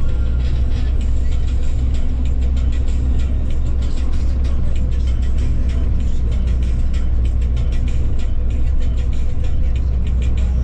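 Steady low rumble of a running vehicle engine, with many light rattling clicks over it.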